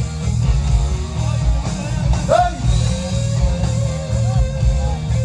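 Rock music with a pulsing heavy bass beat and guitar; a singing voice slides up about two and a half seconds in and holds one long note until near the end.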